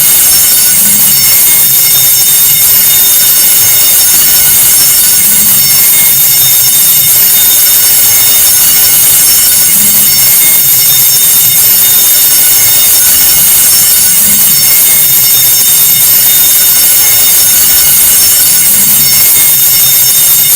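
Electric alarm bell ringing continuously, a loud, steady, shrill metallic ring with a faint lower pulse about every four and a half seconds: the school earthquake-drill alarm.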